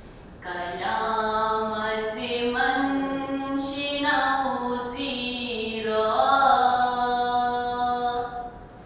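A woman's unaccompanied devotional chanting, sung into a microphone in long drawn-out phrases that slide between notes, with a breath pause shortly before the end.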